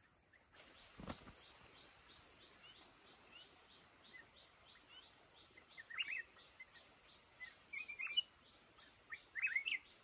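Black-crested bulbul singing three short chirping phrases, about six, eight and nine and a half seconds in, over a faint even series of high notes repeated about twice a second. A single knock about a second in.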